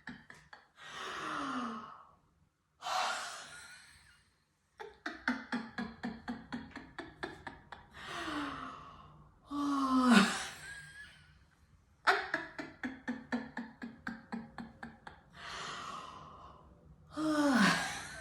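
A person doing laughter-yoga yawning laughter: long breathy yawns, several sliding down in pitch, with runs of quick pulsed 'ha-ha-ha' laughter between them. The loudest yawn comes about ten seconds in.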